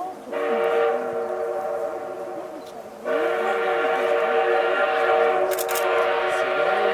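Steam whistle of the C57 class locomotive C57 180 blowing a long, steady blast. It eases off and then sounds out full again about three seconds in.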